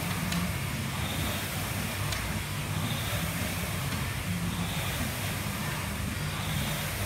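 Air rowing machine rowed at a steady pace: the fan flywheel whooshes continuously, swelling with each drive, with a click about every two seconds, once per stroke.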